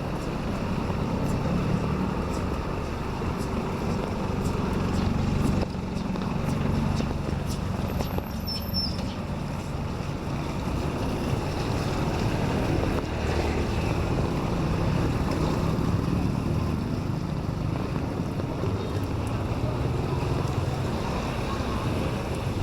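Steady rain falling on a city street, mixed with the low rumble of road traffic.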